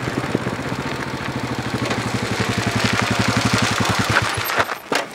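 Royal Enfield Himalayan's single-cylinder engine thumping as the motorcycle rides up the gravel road and passes close by, getting louder until about four seconds in and then dropping away.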